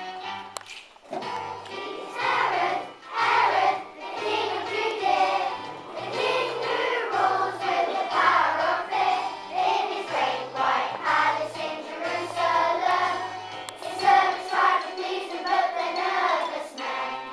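Children singing together in chorus over a musical accompaniment with a regular bass line, starting about a second in.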